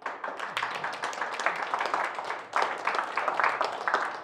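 Audience applauding, many hands clapping; it starts suddenly and keeps going without a break.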